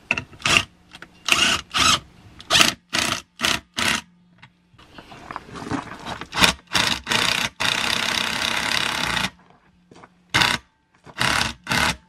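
Cordless impact wrench driving the bolt of a BeadBuster XB-455 bead breaker to push a tyre's bead off an alloy wheel: a string of short trigger bursts, a pause, then one longer run of about two seconds and three more short bursts near the end.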